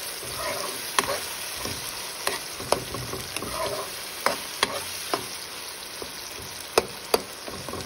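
Chopped tomatoes and onions sizzling in oil in a pan while a metal spoon stirs them, the spoon striking the pan with sharp clicks at irregular moments.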